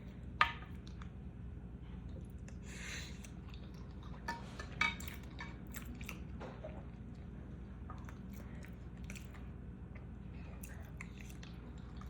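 Close-miked chewing of food, with scattered small mouth clicks and wet smacks over a low steady hum.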